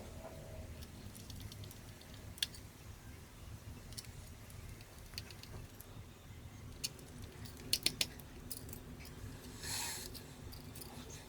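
Scattered small, sharp clicks and taps of hand tools and small parts being handled while taking apart a Canon T6/1300d camera, with three quick clicks in a row about eight seconds in and a brief scrape near the end.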